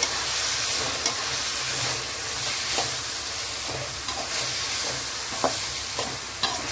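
Mixed vegetables sizzling in oil in a metal kadhai as they are stir-fried with a perforated metal spatula, with several sharp scrapes and knocks of the spatula against the pan. The steady sizzle is the vegetables being sautéed until lightly roasted.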